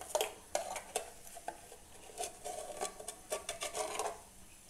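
Metal spoon clinking and scraping against a container, a run of short, irregular clinks.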